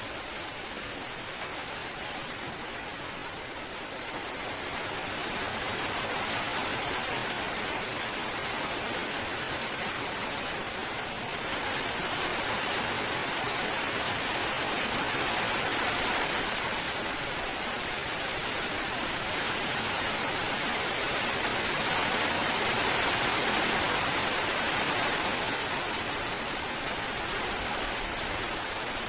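Steady rainfall, a continuous even hiss that swells louder about a few seconds in and eases back near the end.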